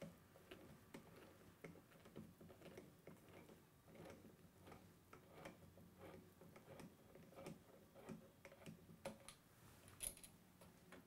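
Faint, irregular clicks and small ticks of hands unscrewing the mounting screws of a wall light switch and handling the switch in its metal box, with a sharper click about ten seconds in.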